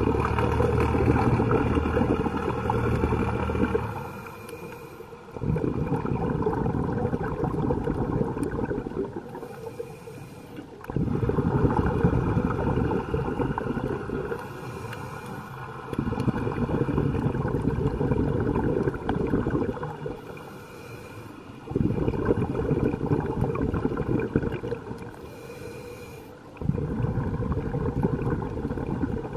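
A scuba diver breathing through a regulator underwater: a brief hiss of inhalation about every five seconds, each followed by a long rush of exhaled bubbles.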